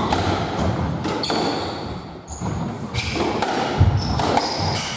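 Squash rally: repeated sharp cracks of the ball off rackets and the court walls, with short high squeaks of shoes and thuds of footsteps on the wooden court floor.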